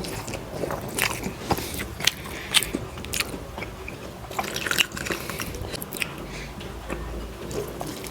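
A person chewing and biting food close to the microphone, irregular short wet clicks and smacks of the mouth.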